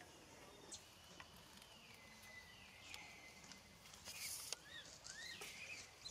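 Faint outdoor ambience with a thin steady high tone and a few short, high chirping calls in the second half, along with a few faint clicks.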